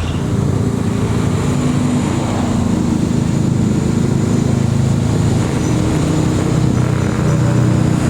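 Motor vehicle engine running steadily and loudly close by.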